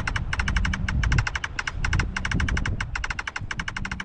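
A ghost-hunting translator app on a phone beeping in a rapid train of short electronic chirps, about eight a second in uneven runs, while it 'receives a response'. An irregular low rumble, like handling noise on the microphone, runs underneath.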